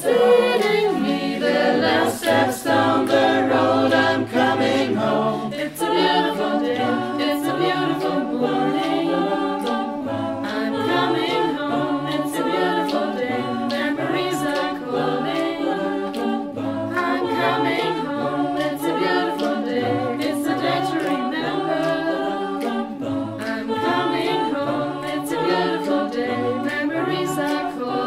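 Mixed a cappella choir singing in close harmony, with a sung bass line moving step by step beneath and a steady rhythm of sharp percussive clicks.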